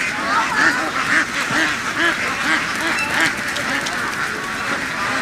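A large flock of domestic laying ducks quacking continuously, many overlapping calls at once.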